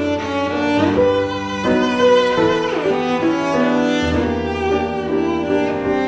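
Background music of bowed strings, cello and violin, playing held notes that change every second or so.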